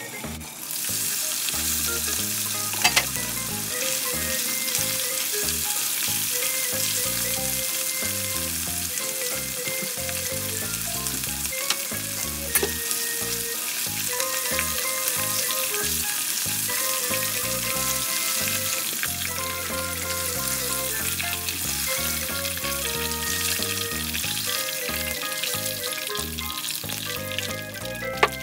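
Cornflour-coated chicken pieces frying in hot oil in a pan, a loud steady sizzle that jumps up about a second in. A few sharp knocks come from the utensil turning the chicken.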